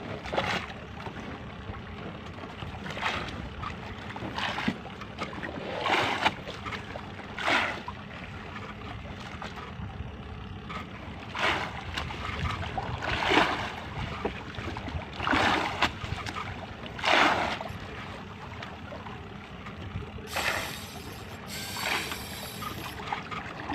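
Water splashing and slapping against the side of a small outrigger fishing boat every second or two, over a steady low rumble.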